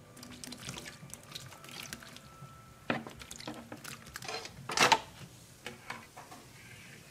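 Raw gulab jamun dough balls sliding off a plastic plate and dropping into a pan of frying oil: a run of small, irregular plops and clicks, with a louder knock about five seconds in and another near three seconds.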